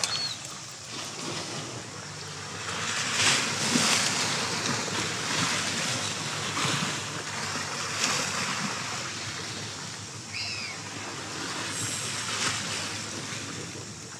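Small sea waves washing and sloshing against shoreline rocks, swelling and ebbing every few seconds, with a louder surge about three to four seconds in.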